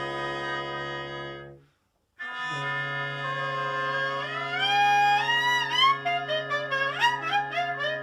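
Music from wind instruments: a held chord that breaks off for a moment about two seconds in, then resumes with a melody climbing in steps over a sustained chord.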